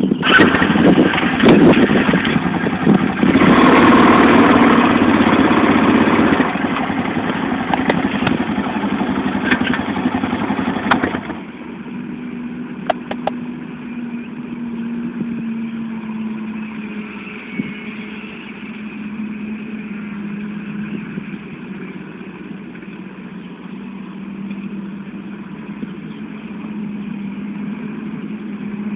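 John Deere 7920 tractor's six-cylinder diesel engine running while ploughing. Loud, with a rush of noise over it for about the first eleven seconds, then it drops suddenly to a quieter, steady engine note.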